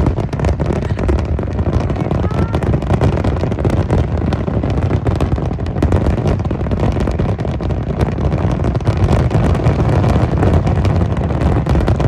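Fireworks display going off without pause: booms and crackles in rapid succession, many overlapping.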